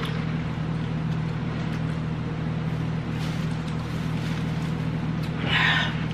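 A steady low hum with a few even tones underneath, like a motor or electrical hum, unchanged throughout; just before the end, a short sharper burst of noise.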